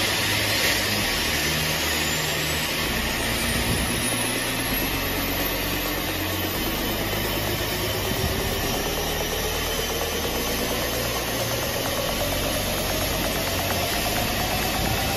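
Rolls-Royce Trent XWB turbofan on an Airbus A350 running near idle: a steady rushing noise with a whine that slowly rises in pitch as the engine spools up.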